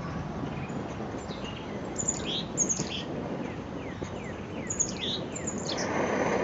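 Small birds chirping, short high calls again and again, over a steady background hiss. About six seconds in a broad rushing roar rises: the Primus MFS stove's burner starting up on Coleman fuel as its valve is opened after priming.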